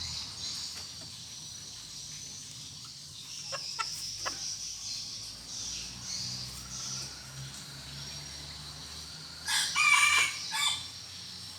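A rooster crows once near the end, a short crow of just over a second.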